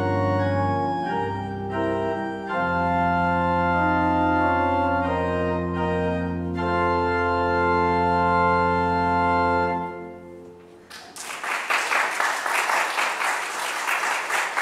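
Organ postlude at the close of the service: sustained chords that end on a long held chord about ten seconds in. The congregation then breaks into applause.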